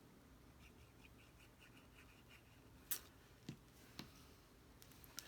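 Near silence, with a light run of faint ticking and then four short taps as paper card pieces are handled and pressed together on the desk.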